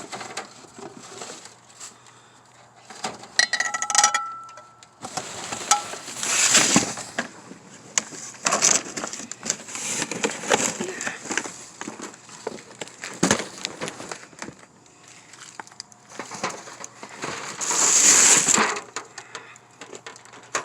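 Rummaging through trash in a dumpster: irregular rustling, crinkling and crunching of bags and debris being moved, with a short ringing clink of metal or glass about four seconds in.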